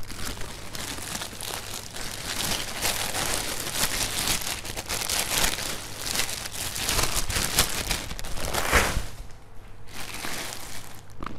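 Clear plastic bag crinkling and rustling as a pair of sneakers is pushed into it, dying down about nine seconds in.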